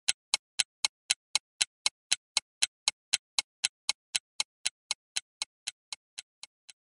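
Ticking timer sound effect, like a clock, about four sharp ticks a second, fading out over the last couple of seconds.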